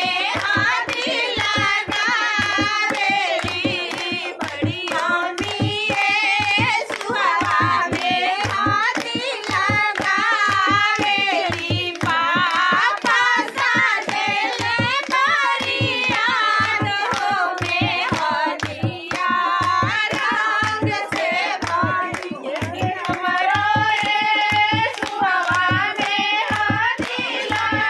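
A group of women singing a mehndi folk song together, with a dholak drum beating a steady rhythm and hand claps on the beat.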